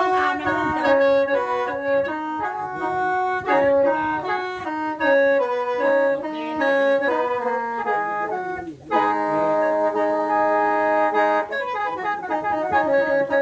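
Instrumental introduction to an Isan mor lam song: a reedy melody played in quick stepping notes over held drone notes. It breaks off briefly about nine seconds in for a long held chord, then the melody resumes.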